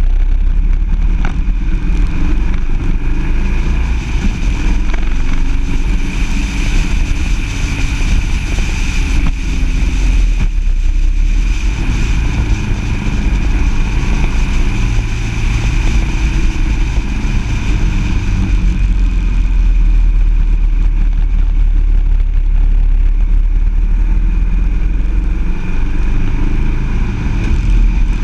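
Engine of the vehicle carrying the camera running steadily at road speed, under heavy wind rumble on the microphone, with a steady high whine over it.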